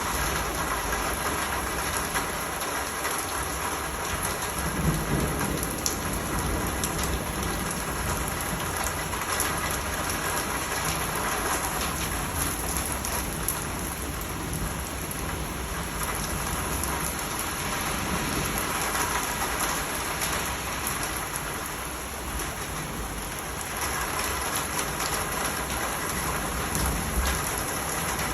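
Steady rain falling and pattering, with scattered sharper drips and a low rumble underneath throughout.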